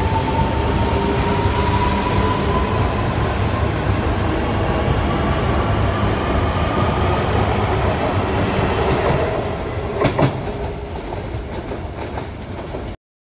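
E3 series Shinkansen pulling out along the platform: a heavy rumble of wheels on rail, with a motor whine that rises steadily in pitch as the train accelerates. The sound fades after about nine seconds as the last car passes, two sharp knocks come about ten seconds in, and it cuts off suddenly near the end.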